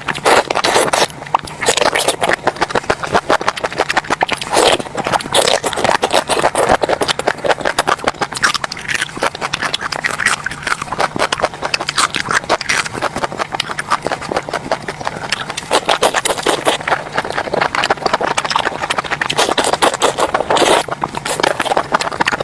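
Close-miked eating: chewing and crunching, with rapid irregular clicks and crackles throughout.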